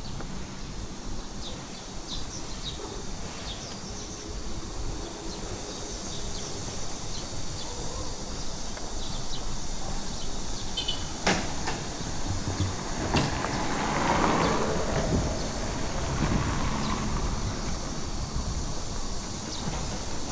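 Outdoor ambience heard while walking: a steady low rumble with scattered faint high chirps and a few sharp clicks, and a louder swell of noise about two-thirds of the way through, like something passing close by.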